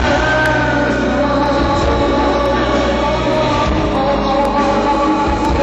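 Loud live concert music played over the venue's PA, heard from among the audience: a steady band track with held melody notes over bass.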